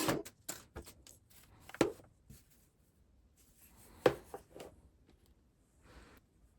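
Hands handling a new wireless headset and its packaging: scattered sharp clicks and knocks of plastic and cardboard, the loudest about two seconds and four seconds in, with a brief scratchy rustle near the end.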